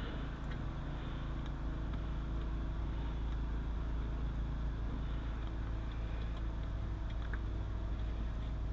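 Steady low mechanical hum with a few faint scattered ticks.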